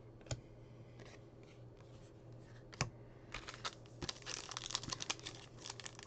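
Two light taps of cards on a table, then from about three seconds in the crinkling and tearing of a foil trading-card pack wrapper being handled and ripped open.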